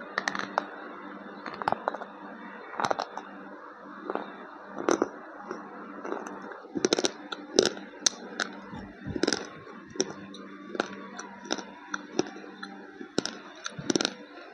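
A slate pencil being bitten and chewed: sharp, dry crunches about once a second, some in quick pairs, over a steady low hum.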